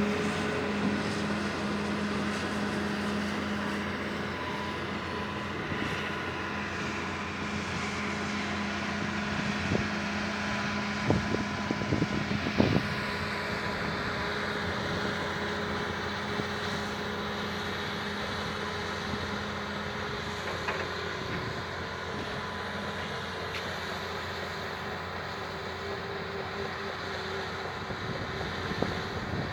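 Excavator diesel engines running steadily, with a few sharp metallic knocks about eleven to thirteen seconds in. Wind rumbles on the microphone.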